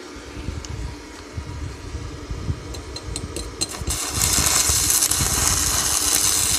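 Stick-welding arc from a Dnipro-M SAB 258D inverter welder at maximum current with a rutile electrode: a few sharp clicks as the electrode is struck, then, about four seconds in, the arc catches and settles into a steady loud crackling sizzle. The repaired welder holds the arc well at full current.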